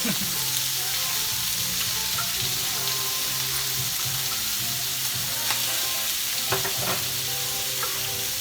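Pork belly sizzling on a tabletop grill, a steady frying hiss, with a few sharp clicks about five to seven seconds in.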